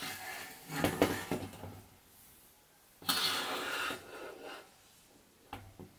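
A metal-framed room heater being handled: knocks and scrapes of its frame in the first two seconds, a hissing scrape about a second long a little past the middle, and a few light clicks near the end.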